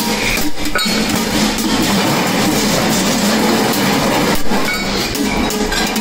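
Metal clinking and knocking as a handle bracket is fitted onto a sheet-metal kettle body, with a few sharp clicks.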